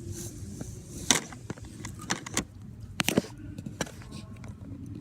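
Slime being squeezed and pressed by hand: irregular sticky pops and clicks, with two louder crackling pops about a second in and again about three seconds in.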